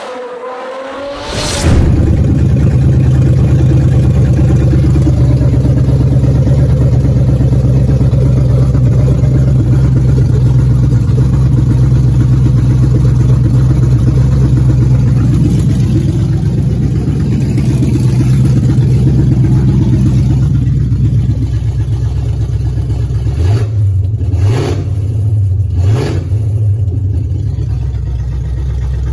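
Ford Mustang's Roush-supercharged 5.0 Coyote V8 running steadily, after a short intro jingle in the first two seconds. About three-quarters of the way through it is blipped three times, each a short rising rev, then settles back to idle.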